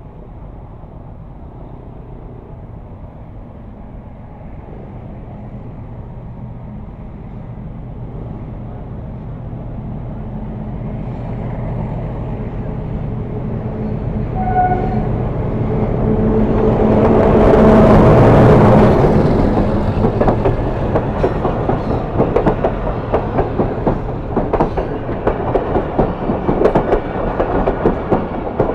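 Diesel-electric locomotive and passenger train approaching: the engine drone grows steadily louder and peaks as it passes, about two-thirds of the way in. After that, the coaches' wheels clatter rapidly over the rail joints.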